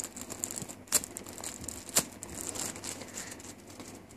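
Clear plastic packaging bag crinkling as it is handled by fingers, with a few sharper crackles about a second apart.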